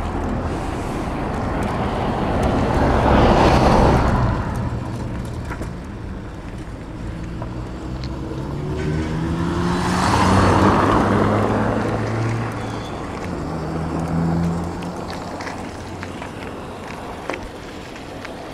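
Street traffic: motor vehicles passing by, one swelling up and fading about three to four seconds in and another about ten to eleven seconds in, with engine hum in between.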